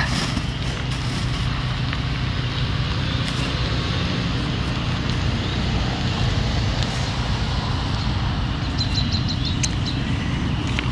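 A generator engine running steadily, a constant drone with a low hum. About nine seconds in comes a brief, quick run of high ticks.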